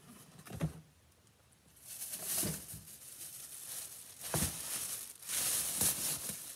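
Thin plastic grocery bag rustling and crinkling as a box is pulled out of it, starting about two seconds in. Four soft thumps spaced through it as the box is handled.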